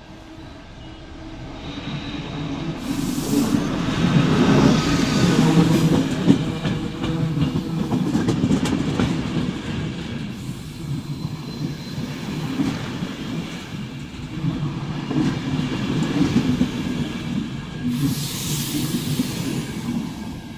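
Locomotive-hauled passenger train passing close by, its rumble building as the locomotive approaches and peaking about four to six seconds in, then the coaches' wheels running steadily past over the track. A brief hiss near the end.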